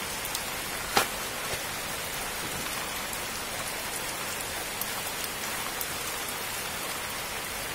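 A basin full of live freshwater crabs scrabbling and crawling over one another, a steady fine crackling hiss like rain. A sharp click about a second in.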